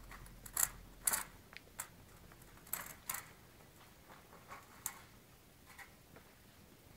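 Irregular light clicks and clinks from a five-week-old puppy eating from a stainless steel bowl on a tile floor, with claws tapping. The clicks are thickest in the first half and come singly later.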